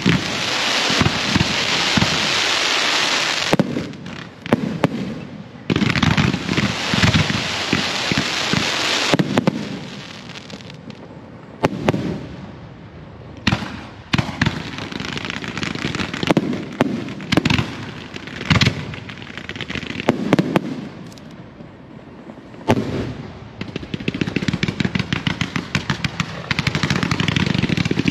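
Fireworks display: aerial shells bursting with sharp bangs, with long stretches of hissing and dense crackling from fans of ground-fired fireworks. Near the end comes a fast run of pops.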